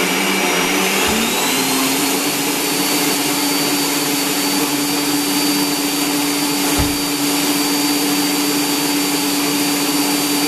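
Electric stand mixer running steadily, its beater creaming butter and sugar in a stainless steel bowl, with a steady motor hum and a faint high whine. The hum steps up slightly in pitch about a second in, and there is a single dull knock a little past the middle.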